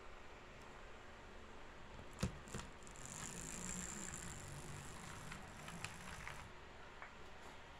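Faint whir of the small electric motor in a bare G12 model locomotive chassis running along the track, with light clicks and one sharper click a little over two seconds in. Only one truck picks up current, so the motor runs only while that truck is on live rail.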